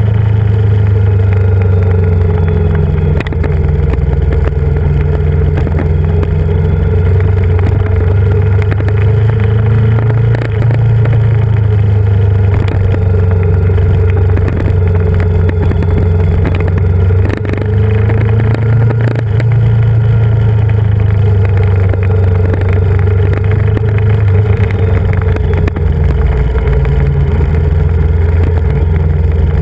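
Yamaha Vmax 1700's V4 engine running under way, heard from on board the moving motorcycle as a loud, steady low drone. The pitch rises and falls gently with the throttle, and the engine eases off briefly a few times.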